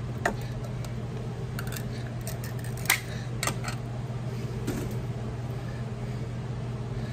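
A few light clicks and taps of utensils and glass canning jars being handled, the sharpest about three seconds in, over a steady low hum.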